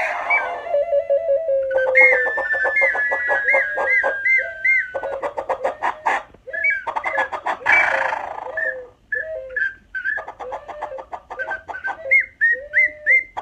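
Pre-Hispanic clay whistles imitating rainforest birdcalls, several layered at once: short hooked whistled notes repeated about twice a second over long slowly falling tones and fast pulsing trills. A breathy, rushing blast about eight seconds in.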